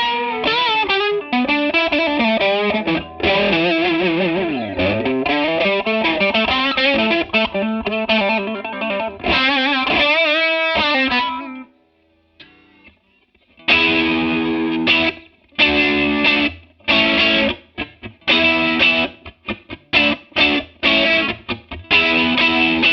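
Electric guitar played through a TC Electronic Corona Mini chorus pedal, its notes wavering with the chorus. First comes a phrase of notes and chords with a downward pitch swoop about five seconds in. After a brief pause near the middle come short, choppy strummed chords.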